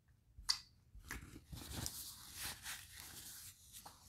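A wet smack from licking food off the fingers about half a second in, then a paper napkin rustling and crinkling for about two and a half seconds as it is pulled out and handled.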